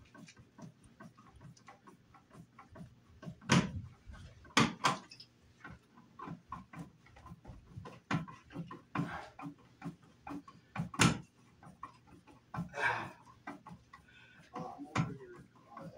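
Hand screwdriver and hardware being worked at a wall electrical box: a run of small clicks and scrapes, with three sharp knocks about three and a half, four and a half and eleven seconds in.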